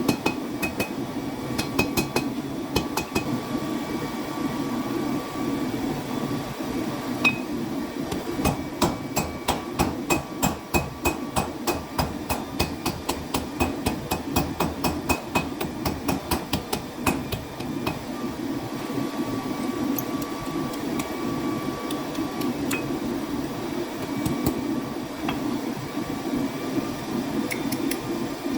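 Hand-hammer blows on hot steel at the anvil while forging cable damascus: scattered strikes, then a fast run of about three blows a second from about eight to seventeen seconds in. A steady roar from the forge runs underneath.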